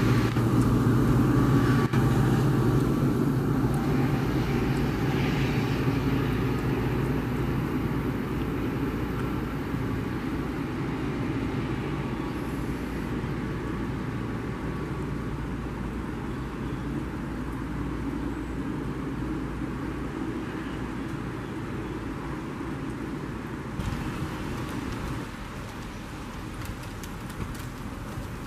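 GP40PH-2B diesel-electric locomotive's engine running as the train moves off, its low drone fading steadily.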